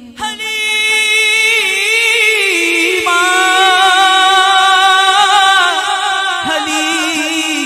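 A man's voice singing an Urdu naat without instruments into a microphone. He holds one long ornamented phrase with wavering turns in the melody, coming in sharply at the start and falling to a lower note near the end.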